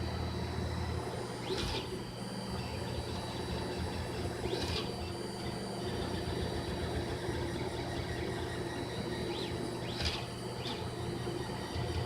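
Monoprice Select Mini 3D printer running a print: a steady low hum with a faint high whine, and short rising-and-falling whines every few seconds.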